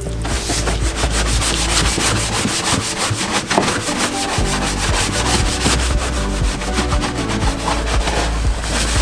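Rhythmic scrubbing on a car's bodywork or wheels, several strokes a second. Underneath is a steady low hum that stops for about two seconds a couple of seconds in.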